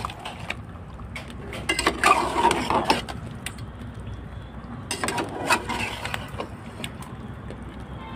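Flat metal spatula scraping and clacking against a metal pot as chicken in thick yogurt masala is stirred and fried on low heat, in two bouts of scraping, about two seconds in and again about five seconds in.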